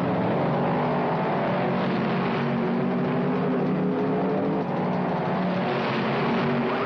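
Cartoon sound effect of a car engine running: a steady droning hum over a rushing noise.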